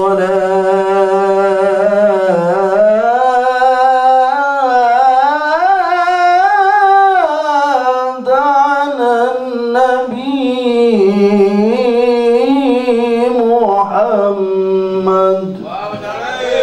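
A man singing a solo, unaccompanied devotional line into a microphone. He draws out long held notes with wavering ornaments and sliding pitch, and the frame drums are silent.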